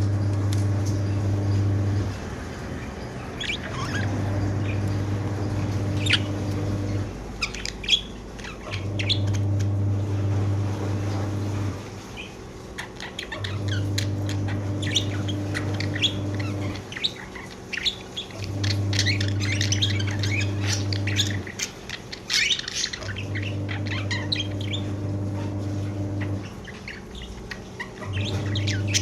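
Pet budgerigars chirping and chattering in quick, scattered calls. Under them a low hum comes on for about three seconds and stops for about a second and a half, again and again.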